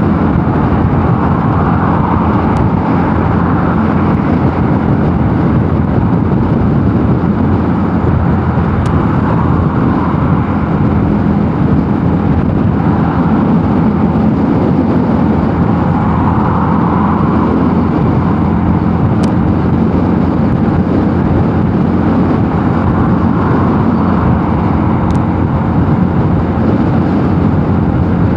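Mondial Nevada 250 motorcycle running steadily at cruising speed, its engine drone mixed with heavy wind rush over the microphone that swells and fades.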